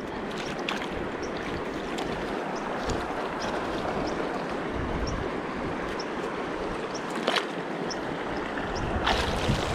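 Mountain river rushing steadily over shallow riffles, with a couple of brief sharper splashes or knocks about seven and nine seconds in.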